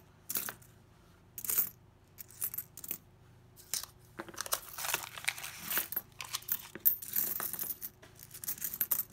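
Nickels clinking as they are slid across a coin mat, a few separate clicks at first. About four seconds in, a paper coin roll is opened and its nickels spill out in a dense run of clinks and paper rustle.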